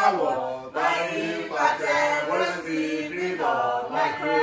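A group of people chanting a nursery rhyme together without instruments, in short sung phrases.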